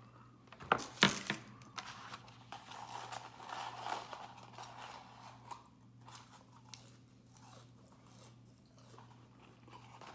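A person eating McDonald's fries and chicken nuggets: close chewing and crunching mouth sounds, with a cluster of loud sharp knocks about a second in.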